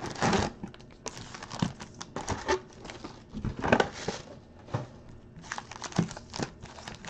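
Sealed trading-card packs in shiny crimped wrappers crinkling and rustling as stacks of them are picked up and shifted by hand, in short irregular rustles with sharp crinkles.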